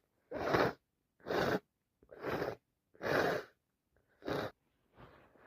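A congested nose sniffing hard, five wet sniffs about a second apart, the last one fainter, the sniffles of a head cold.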